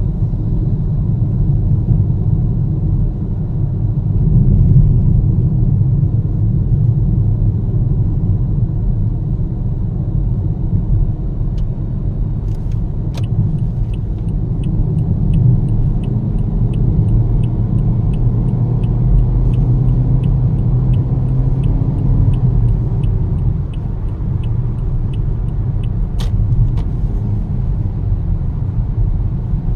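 Motorcycle engine and exhaust rumbling steadily. Through the middle of the stretch a light, evenly spaced high ticking runs at about one to two ticks a second, with a couple of sharp clicks.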